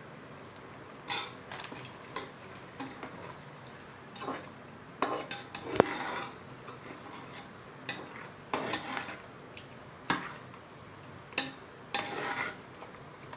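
A ladle stirring thick masala in a pressure cooker, scraping and knocking against the metal pot in irregular strokes, with the loudest knock about six seconds in.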